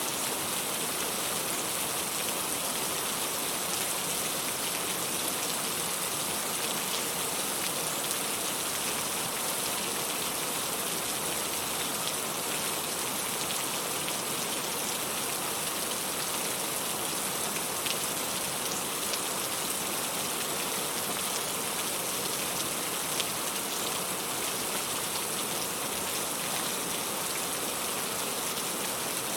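Steady rain falling, a constant even hiss with now and then a single louder drop ticking through.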